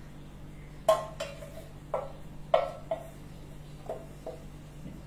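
A wooden spatula knocking and scraping against a metal cooking pot. There are about seven sharp knocks, each leaving a short ring from the pot, and the loudest come about one and two and a half seconds in.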